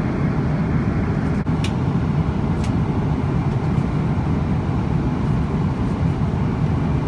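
Steady low cabin noise of a Boeing 777-200 airliner in flight, an even engine and airflow rumble heard from an economy-class seat.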